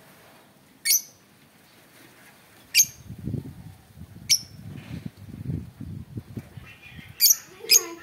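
Lovebirds giving short, sharp, high-pitched shrieks: single calls about a second in, near three seconds and just past four seconds, then two in quick succession near the end.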